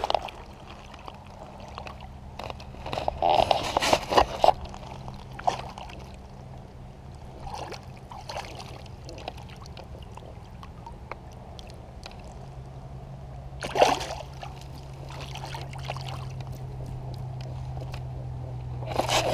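Water splashing and trickling as a landed smallmouth bass is held at the surface of shallow water and let go, with a few short louder splashes about three to four seconds in and again near fourteen seconds. A steady low hum runs underneath.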